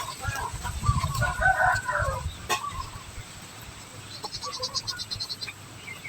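Small birds chirping in short, broken calls, with a fast run of high, even ticking calls about four seconds in, over a low rumble in the first half.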